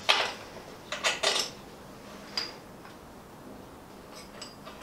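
Sharp metal clinks of a spanner against an engine mounting bolt and the steel motorcycle frame: four distinct strikes in the first two and a half seconds, then a few faint ticks near the end.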